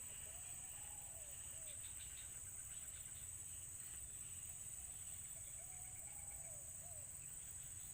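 Faint outdoor background: a steady high-pitched hiss, with two faint, drawn-out distant calls that rise and fall, one near the start and one about five seconds in.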